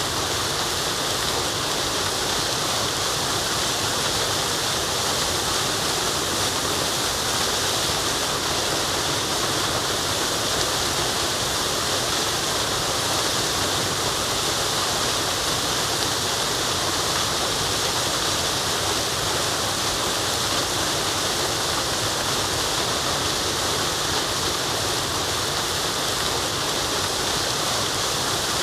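Waterfall rushing steadily: an even, unbroken hiss of falling water, brightest in the high range.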